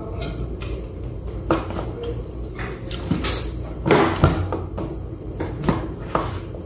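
Close-up eating sounds: chewing and mouth clicks, with a few sharp knocks and clinks of dishes being handled, the loudest about four seconds in, over a steady low hum.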